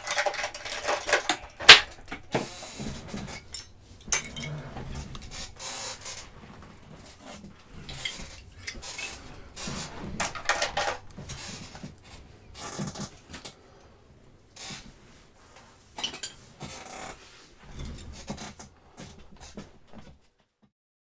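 Small hard objects and tools being handled and set down on a workbench: irregular clicks, knocks and clatter, with one sharp click about two seconds in. The sound cuts off just before the end.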